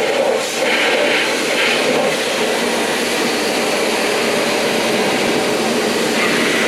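Pressure washer spraying a steady jet of water against the car's door in a continuous loud hiss.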